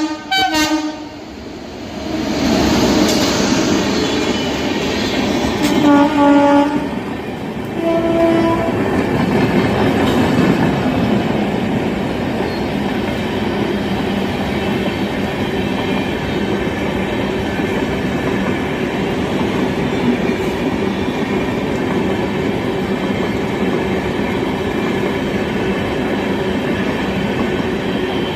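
Indian express train sounding its horn in a few short blasts, near the start, about six seconds in and again about eight seconds in, then the steady rumble and clatter of the train running on the rails.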